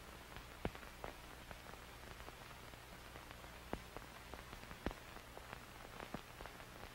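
Faint vinyl record surface noise: a steady hiss and low hum with scattered sharp crackles and pops. The loudest pops come just under a second in and at about four and five seconds in.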